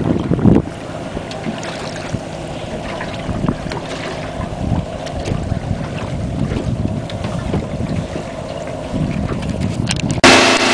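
Motorboat under way at sea: wind buffets the microphone over the steady noise of the engine and water. It is heaviest in the first half-second. Near the end the sound switches abruptly to a steadier engine hum.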